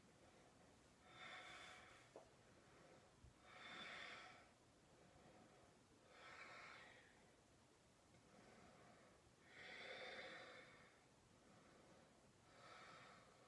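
Faint, slow breathing of a woman holding a yoga stretch: a soft breath every two to three seconds, about six in all.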